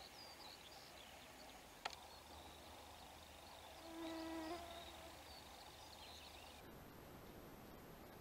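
Quiet outdoor morning ambience with faint, thin bird chirps. A single sharp click comes just before two seconds in, and a short pitched call with several overtones, the loudest sound, follows about four seconds in.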